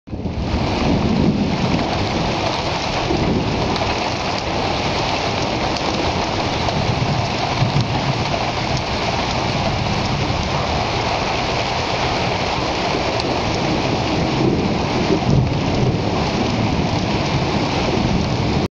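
Heavy rain pouring steadily, with thunder rumbling low now and then; it stops abruptly at the end.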